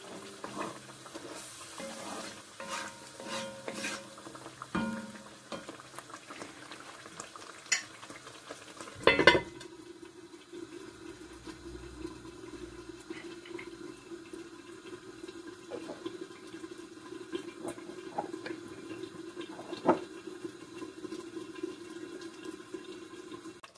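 A wooden spoon stirs thick tomato stew in an enamelled cast-iron casserole, with scattered scrapes and knocks. About nine seconds in the heavy lid goes on with a loud clank, and the covered stew then simmers with a steady low bubbling.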